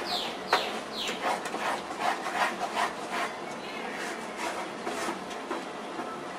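A wooden spatula scrapes and rubs against the bottom of a metal pan, stirring thick kaju katli mixture of cashew paste and sugar over a low flame. The stirring keeps the thickening mixture from sticking to the pan. The strokes come quickly, with three short squeaks falling in pitch in the first second, then turn softer and sparser after about three seconds.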